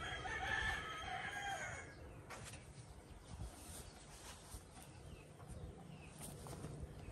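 A rooster crowing once, faintly: one call lasting about two seconds at the start, then faint outdoor quiet with a few light ticks.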